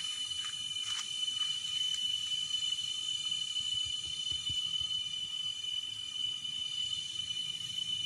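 Insects, crickets or cicadas, keeping up a steady high-pitched drone, with a few faint brief chirps about a second in.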